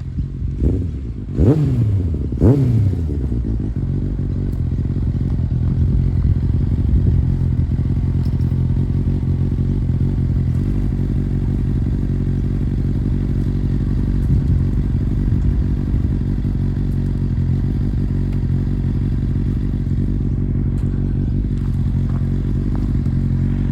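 Kawasaki ZX-9R's inline-four engine revs up and drops back three times in quick succession in the first few seconds, then runs steadily.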